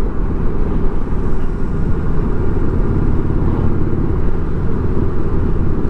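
Steady rumble of a touring motorcycle cruising at highway speed, its engine and tyre drone mixed with wind rushing past the microphone.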